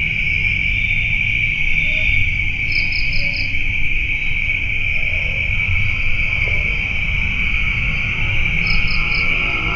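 Night insect chorus: a steady, high-pitched cricket trill, with a higher chirp of four quick pulses about three seconds in and three more near the end, over a low steady rumble.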